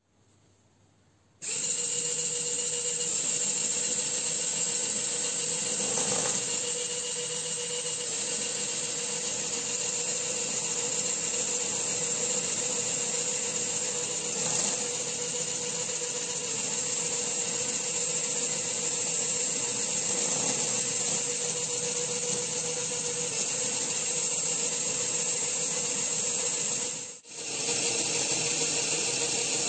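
LEGO Power Functions M motor driving a plastic LEGO gearbox, starting about a second and a half in and whirring steadily with the hum of meshing gears. It cuts out briefly near the end and starts again.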